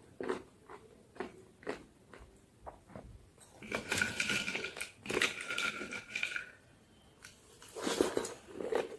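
Close-miked crunching and chewing of hard white sticks eaten by the spoonful. Scattered sharp crunches open, a denser, louder run of crunching follows from about three and a half to six and a half seconds in, and softer mouth sounds come near the end.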